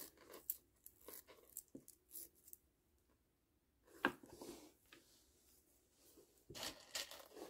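Faint handling noise of plastic pony beads and string: scattered small clicks and rustles, one sharper click about four seconds in, and a short stretch of rustling near the end.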